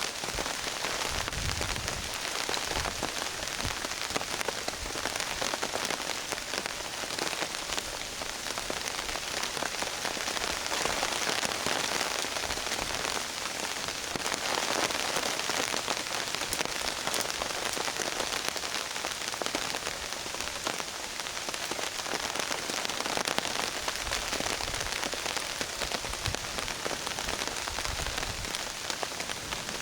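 Steady rain falling on a tarp over the camera, a dense even patter, with a few short low thumps about a second in and near the end.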